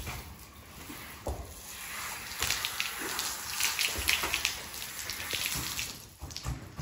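Water spraying from a hose nozzle onto a horse's coat and the wet stall floor, wetting the skin before a medicated wash. The spray grows stronger about two seconds in and eases off near the end, with a couple of dull knocks.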